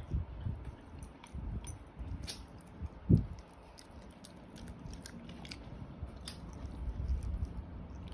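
A dog eating durian flesh, chewing and licking in irregular bouts with small clicks, and one louder low thump about three seconds in.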